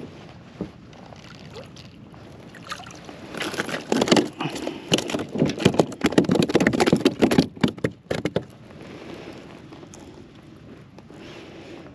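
Water splashing, then a quick run of slaps and knocks for several seconds as a fluke (summer flounder) is lifted out of the water and thrashes against a plastic kayak. Quieter water lapping follows.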